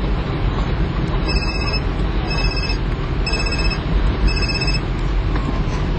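Steady low vehicle rumble with a high electronic beep repeating about once a second, each beep short; a faint tone slides downward near the end.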